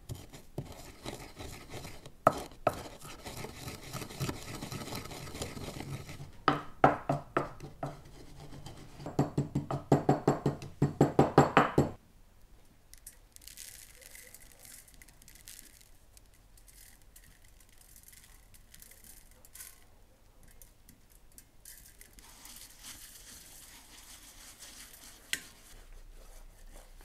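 Wooden pestle grinding cumin and coriander seed with paprika in a wooden mortar: a rapid run of knocks and scrapes, strongest toward the end, that stops abruptly about twelve seconds in. After it comes faint rubbing as hands work the spice mix into a raw lamb carcass.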